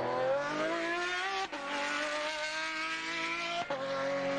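Racing car engine running at high revs under acceleration, its note climbing, with two quick gear changes that briefly break the sound, about a second and a half in and again near the end.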